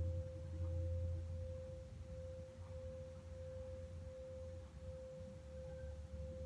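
111 Hz tuning fork humming a low, steady tone that slowly fades, with a fainter higher tone running alongside it.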